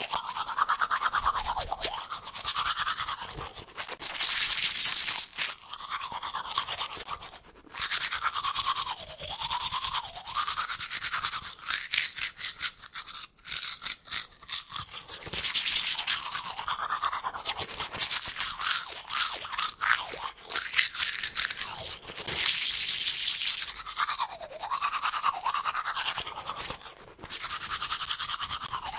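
Teeth being brushed with a toothbrush: a continuous run of rapid scrubbing strokes whose tone rises and falls as the brush moves. There are a few short breaks, about a quarter and halfway through and near the end.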